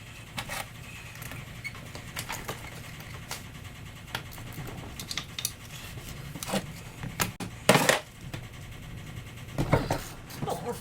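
Hand tools and metal engine parts being handled during bench disassembly: scattered light clicks and taps, a louder knock about eight seconds in, and a short run of knocks near the end.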